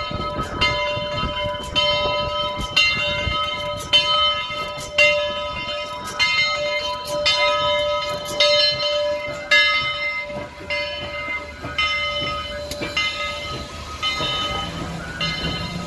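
The bell of the Southern Railway 4501 steam locomotive ringing about once a second as the engine rolls slowly past, over the low rumble of the train.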